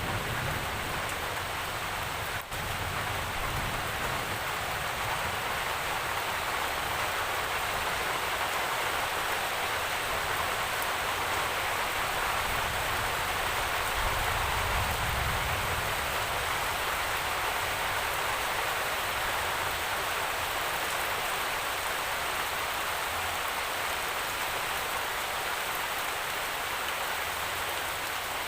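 Steady rainfall: an even, continuous hiss of rain, with a momentary dropout about two and a half seconds in.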